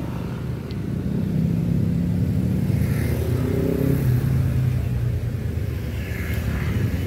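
City road traffic passing close by: motorcycles, cars and minibuses, their engines making a steady low hum with swells as vehicles go past.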